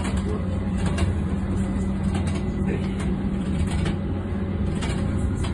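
Tram interior running noise: a steady low rumble and motor hum, with scattered light clicks and rattles.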